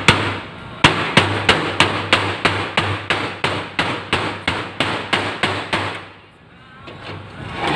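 Hand tool hammering on the sheet-metal body of an old electric stove: a rapid series of sharp metallic blows, about three a second, pausing briefly about six seconds in before the blows resume.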